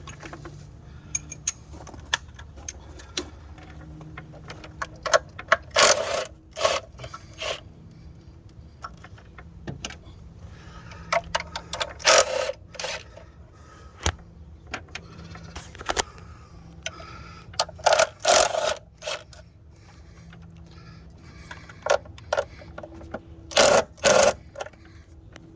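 Ratchet wrench on an extension clicking in short quick runs, with metal tool clatter, loosening the screws that hold the coil packs; the loudest runs come about every six seconds.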